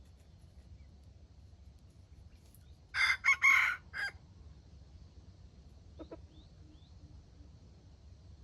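A jungle fowl rooster crows once about three seconds in, a short clipped crow ending in a brief final note. A faint short call follows about six seconds in.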